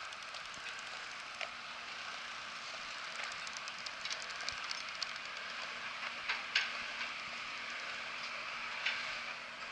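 Steady outdoor hiss with scattered light ticks and clicks; the loudest come about six and a half seconds in and again near nine seconds.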